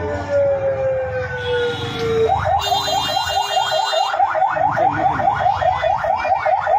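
Electronic vehicle siren: a long falling wail, then, about two seconds in, a fast yelp of repeated rising sweeps, about five a second, over a low engine rumble.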